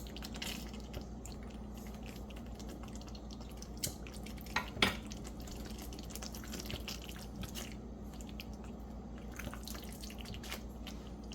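Quiet kitchen background: a steady low hum with scattered small ticks and pops, and two sharper clinks about four and five seconds in.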